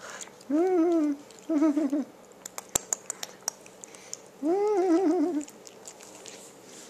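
Puppy whining in three warbling, wavering calls during rough play, the last about a second long, with a few light clicks in between as it play-bites a hand.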